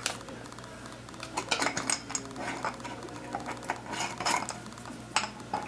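Small metal hardware (nuts, washers, a handle) clinking and rattling in a glass jar as it is handled, in scattered clusters of clinks, over a low steady hum.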